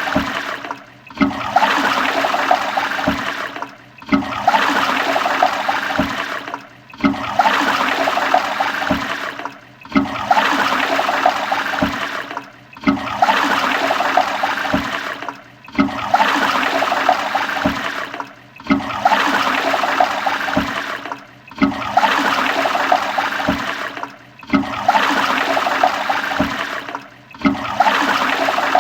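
Toilet flushing, rushing water swirling through the bowl, as a short stretch that repeats over and over, about every three seconds, with a brief dip between repeats.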